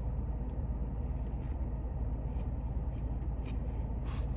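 Faint chewing clicks from someone eating a fried chicken sandwich, over a steady low rumble, with a short sharper noise about four seconds in.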